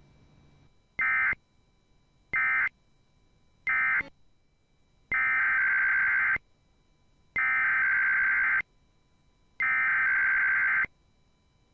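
Emergency Alert System SAME digital data bursts: three short buzzing bursts about a second apart, the end-of-message code, then three longer bursts with similar pauses, the header that opens the next alert.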